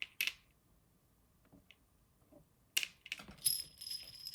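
Faceted Czech glass beads clicking and clinking against each other as they are strung onto stretch cord. Two sharp clicks at the start, then after a quiet gap a click and a run of light, ringing glassy clinking near the end.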